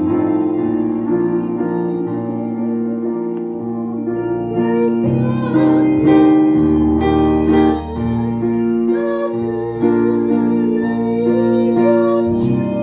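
Keyboard music of held chords and melody notes, with a singing voice with vibrato coming in about four seconds in.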